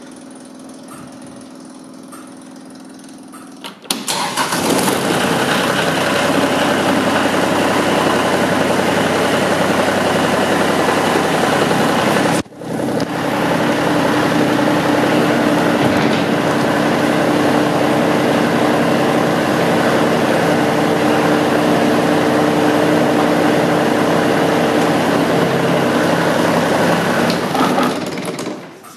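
Kioti CS2610 compact tractor's three-cylinder diesel engine running, fairly quiet at first. About four seconds in it gets much louder and stays steady, with a brief sharp drop about twelve seconds in, and it fades near the end.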